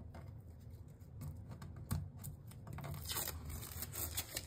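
Faint rustling and handling noises with a few light clicks, and a brief louder scrape about three seconds in.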